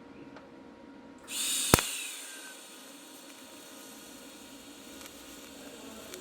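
TIG welding arc striking on thin aluminium foil about a second in: a sudden hiss with one sharp crack, louder at first, then settling into a steady hiss.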